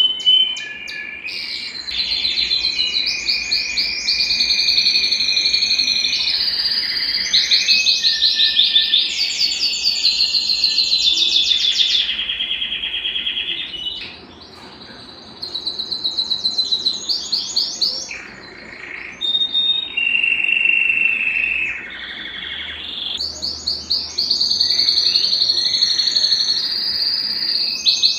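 Belgian canary singing: a long song of fast, rapidly repeated trilled notes, high-pitched, switching from one trilled phrase to the next every second or two, with two short breaks about halfway.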